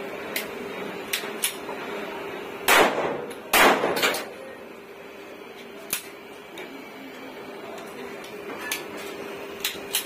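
Two shots from a 14-shot 30 bore (7.62×25 mm Tokarev) pistol, about a second apart roughly three seconds in, each ringing off the surrounding concrete walls, with a lighter knock just after. A few light clicks of pistol and magazine handling follow.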